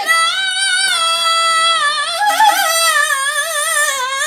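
A single high voice chanting Quranic recitation in one long, ornamented phrase, holding notes and bending the pitch up and down with hardly a break.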